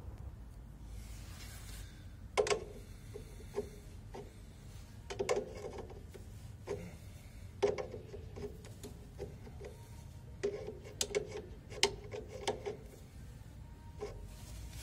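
Irregular metallic clicks and knocks with a short ring, coming in clusters, as a wrench and a gauge hose fitting are worked on a refrigeration compressor's service valve. A low steady hum sits underneath.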